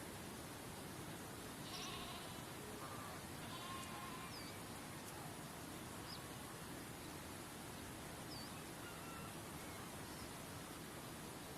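Faint steady rush of waterfall water with scattered bird calls: a trill about two seconds in, a few whistled notes just after, then single short chirps every couple of seconds.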